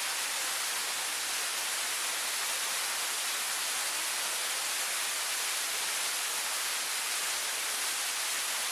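Waterfall: a steady, even rush of falling water, hiss-like and unchanging.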